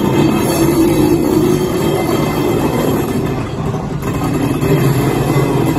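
ED32 electric locomotive moving slowly along station track, with steady running noise from its wheels and running gear on the rails.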